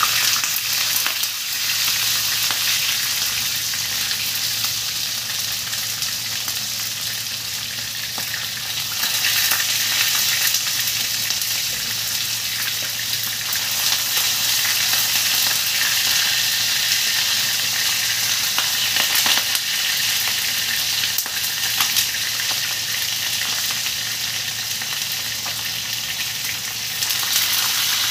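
Pandan-wrapped chicken parcels sizzling steadily as they fry in a pan, getting louder about a third of the way in. Light clicks come now and then as metal tongs turn the parcels against the pan.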